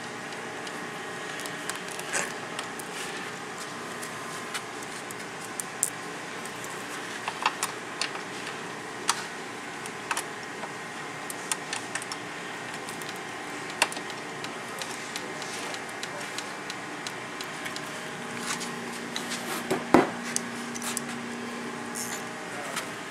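Scattered small clicks and taps of bolts, washers and nuts being handled and fitted by hand into a UTV door bracket, over a steady background hum, with one sharper click about twenty seconds in.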